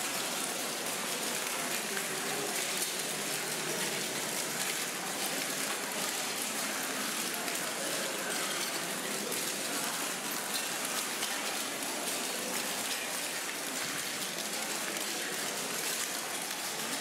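Steady, dense crackling and clinking of broken white tile shards shifting and grinding under many people's feet, with a murmur of voices beneath.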